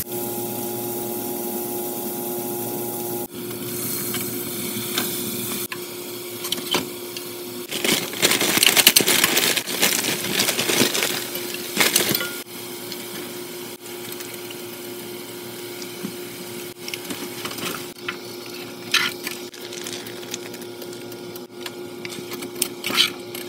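Food cooking in a frying pan: broccoli tipped from a rustling plastic bag onto browned sausage, food sizzling, and a utensil scraping and stirring pasta in the pan, with scattered knocks. A steady electrical hum runs beneath, with the loudest rustling and sizzling around the middle.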